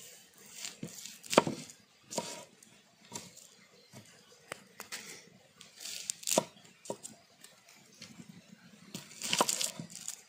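Dry, papery skin of a small red onion being scraped and torn off with a large knife on a wooden board: irregular crinkling, tearing and sharp clicks, loudest about a second and a half in, around six seconds, and near the end.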